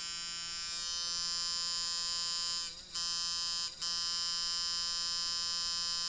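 Rebuilt Sharpz Micro Dial coil tattoo machine, tuned as a medium-stroke fast-running liner, buzzing steadily at 6 volts. The buzz dips twice briefly about halfway through.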